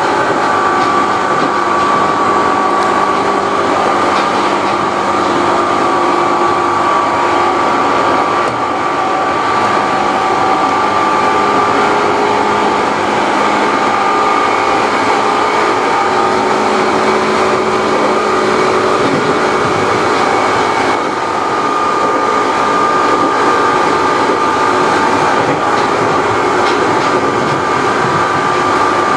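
Seibu New 101 series electric train running at steady speed, heard inside its leading motor car: a constant whine from its very loud traction motors over wheel-on-rail noise.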